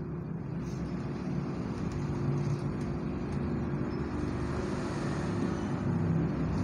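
Steady low rumble with a faint hum, swelling slightly over the first couple of seconds and then holding, like an engine running.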